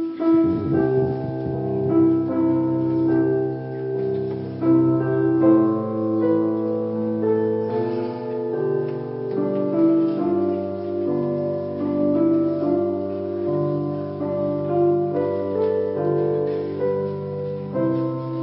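Piano playing a flowing accompaniment of held, overlapping notes, starting suddenly at the beginning as a piece opens.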